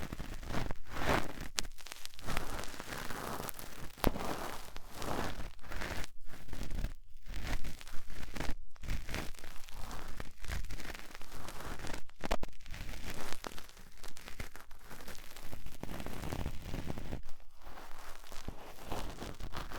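Cotton swab rubbing and scratching inside the silicone ear of a 3Dio binaural microphone: close, crackly rustling strokes with brief pauses between them.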